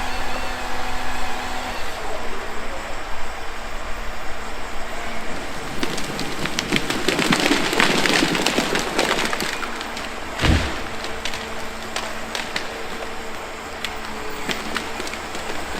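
John Deere 1270G forestry harvester running steadily. From about six seconds in there are several seconds of wood cracking and splintering, then a single heavy thud about ten seconds in.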